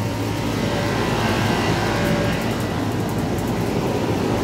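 Commercial air-conditioning condenser unit running: a steady compressor hum under the even rush of its condenser fan.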